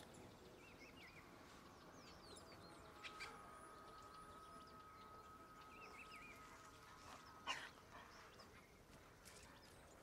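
Quiet woodland ambience: faint, scattered birdsong chirps, a thin steady tone for a few seconds in the middle, and a couple of soft clicks.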